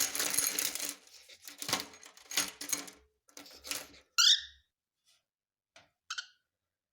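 Scratching and rattling in the first few seconds, then a loud short chirp from a cockatiel about four seconds in and a shorter chirp about two seconds later.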